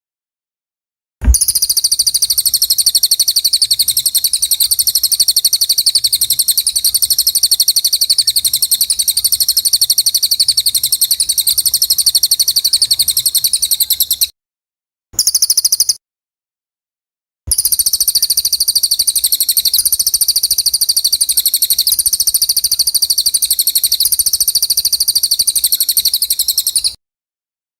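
Songbird singing a fast, unbroken run of rapidly repeated high-pitched notes. It starts about a second in, cuts to dead silence about halfway, returns for a brief snatch, then resumes and stops just before the end.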